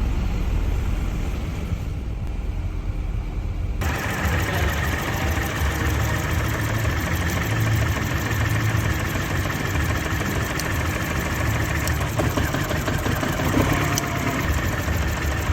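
Mini's engine running at idle with a misfire. About four seconds in the sound suddenly turns fuller and brighter.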